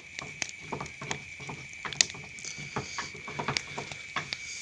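Fire grilling eels, crackling and popping in irregular snaps, with a steady high-pitched whine held throughout and a hiss joining about halfway in.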